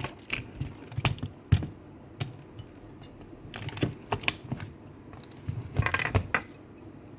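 Irregular plastic clicks and knocks from a Furby Boom toy being handled while batteries are put into it, with one sharper knock about a second and a half in and a quick cluster of clicks near the end.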